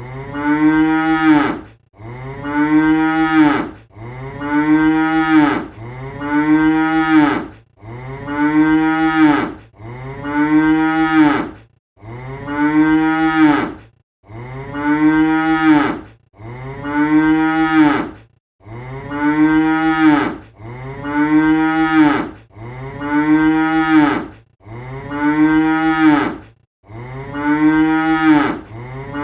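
A cow mooing over and over: the same drawn-out moo about every two seconds, each call rising slightly in pitch and then falling away.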